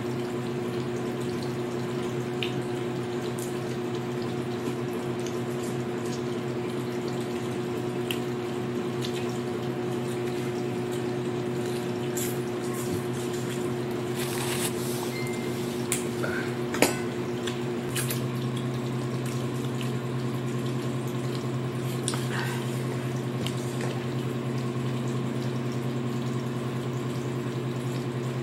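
A steady low machine hum over a faint watery hiss, its tone shifting about two-thirds of the way through, with scattered small clicks and taps from shrimp shells and utensils being handled, one sharper click about two-thirds in.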